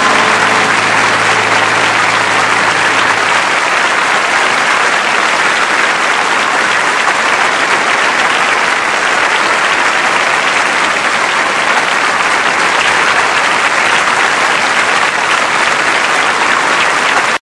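Studio audience applauding steadily, with the last low note of the music dying away in the first few seconds. The applause cuts off suddenly at the end.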